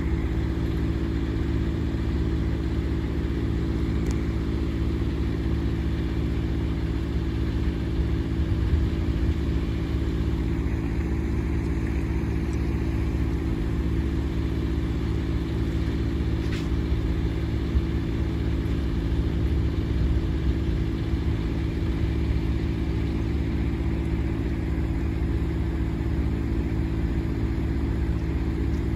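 An engine idling steadily: a low, even hum with several steady tones, unchanging throughout.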